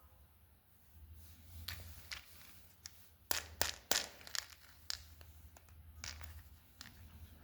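Sweet packaging being handled: crinkling and tearing of a wrapper, with a cluster of sharp crackles a few seconds in and a few scattered ones after.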